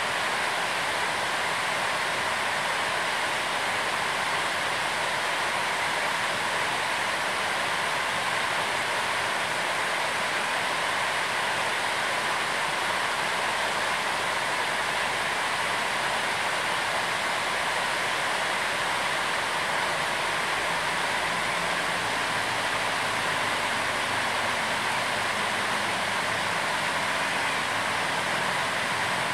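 A steady, even rushing noise with no change in level, strongest in the middle range. A faint low hum joins it about three quarters of the way through.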